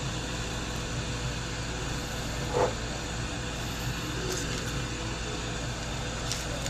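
Steady whir of an electric fan or blower with a low hum under it, and one brief clunk about two and a half seconds in.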